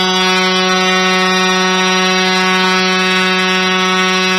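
Arena goal horn sounding one long, steady, low-pitched blast rich in overtones, signalling a goal just scored.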